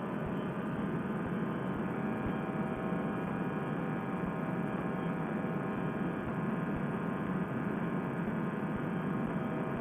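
Fresh Breeze Monster two-stroke paramotor engine and propeller running steadily in cruise flight, an even drone with several held tones and no change in speed.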